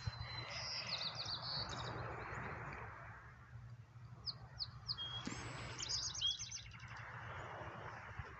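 A small bird chirping in two short runs of quick high notes, one near the start and one past the middle, over a steady background rush.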